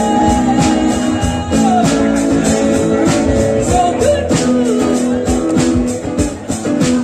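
Live band music: a voice holds long notes that slide between pitches over guitar chords, with a steady percussion beat.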